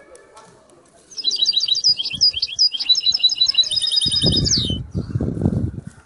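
A canary singing a run of varied chirps that ends in fast, even trills. About four seconds in, a low fluttering noise joins it.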